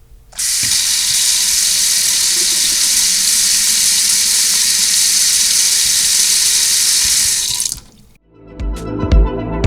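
Water running steadily from a tap, as a steady hiss that starts abruptly just after the start and cuts off about a second before the end.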